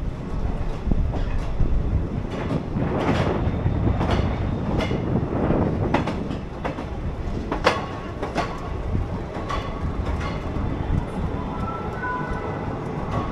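Railway train sounds: a continuous low rumble with irregular sharp clanks and clicks, and faint thin tones near the end.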